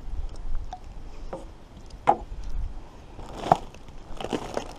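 Taped plastic water bottles knocking and crackling as the bottle chair is handled, a handful of short sharp knocks, the loudest about three and a half seconds in, over a low rumble.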